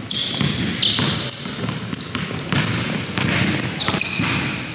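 Basketball dribbled hard and repeatedly on a hardwood gym floor, a sharp bounce about every half second, mixed with short high-pitched sneaker squeaks as the players cut.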